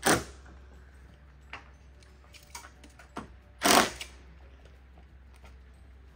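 Cordless drill driving screws through corrugated tin roofing in two short bursts, one at the very start and one about four seconds in, with faint clicks between.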